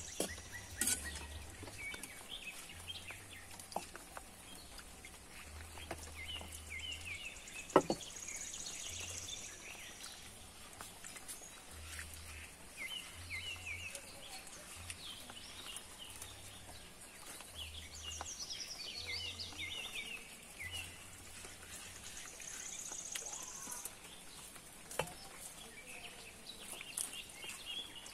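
Outdoor birdsong: birds chirping and calling in repeated short series, with one sharp knock about eight seconds in.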